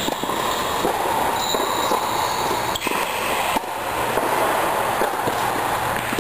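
Tennis ball being hit back and forth in a rally on an indoor court, racquet strikes and bounces heard as several sharp pops about a second apart. Under them runs a steady, loud rushing noise.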